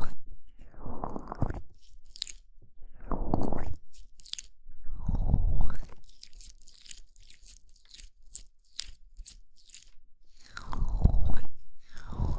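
Oiled hands massaging the ears of a binaural microphone: close, slick, crunchy rubbing that comes in swells about a second long, with a quieter stretch of light crackling in the middle.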